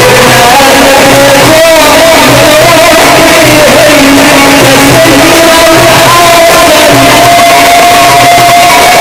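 Sufi inshad: a male munshid singing long held notes with ornamental wavering, amplified through a PA, over instrumental accompaniment.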